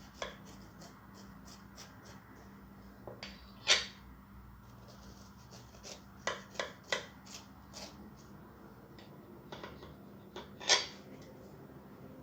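Knife cutting a slice of sponge cake: soft scrapes with scattered small knocks of the blade, the sharpest about four seconds in, a cluster around six to seven seconds, and one near eleven seconds.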